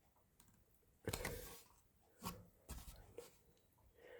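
Faint handling sounds of a hugger ceiling fan's metal blade arms being bent back by hand: a few soft knocks and scrapes, the loudest about a second in, with near silence between them.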